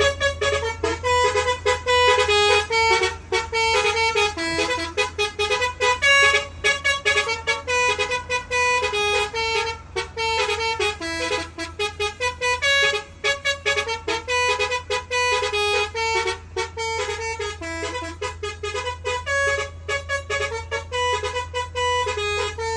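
Basuri musical air horn on a truck playing a tune as a quick run of short notes that change pitch several times a second, over a steady low hum.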